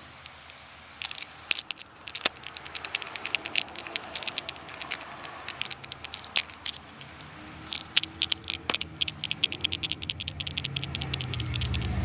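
Dried sea catfish skull bone (a 'crucifix fish') shaken by hand, the small loose bones inside rattling in quick bursts of clicks, starting about a second in, with a short lull midway.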